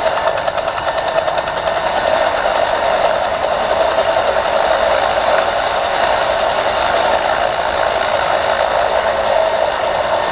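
A small hovering insect's wings humming steadily, a continuous buzz held in place as it hovers.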